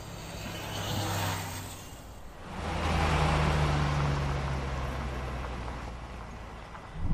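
Title sound design: a swelling whoosh, then, about two and a half seconds in, a deep rumbling boom with a steady low hum that slowly fades. Another deep hit lands right at the end.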